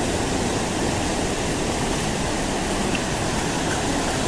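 Rushing white water of a mountain river cascade, a steady, even noise.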